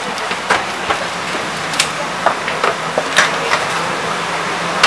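Footsteps on a metal floor plate at an aeroplane's door: irregular light knocks about every half second to second. Under them is a steady rush and hum of air and machinery.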